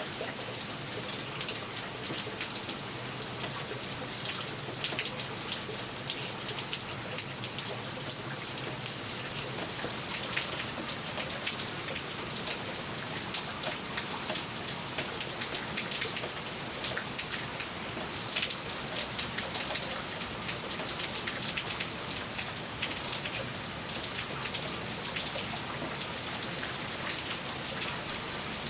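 Heavy rain pouring steadily, a dense hiss full of close raindrop ticks.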